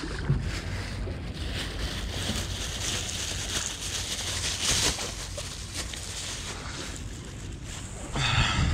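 Thin plastic bag crinkling and rustling as it is handled and pulled open, over wind on the microphone.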